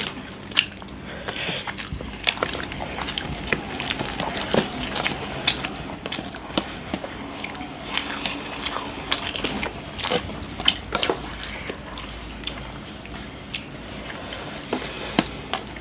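Close-up eating sounds: people biting and chewing chicken, with irregular wet clicks and smacks of mouths and fingers.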